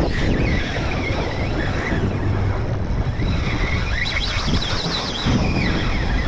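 Wind buffeting the microphone on an open boat at sea, over a steady rumble of water around the hull.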